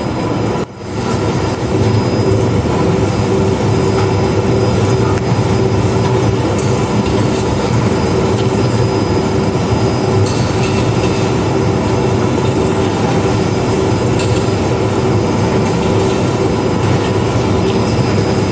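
Automated shrink wrap machine running: a steady mechanical whir and hum from the shrink tunnel and its roller conveyor, with a brief drop in level about a second in.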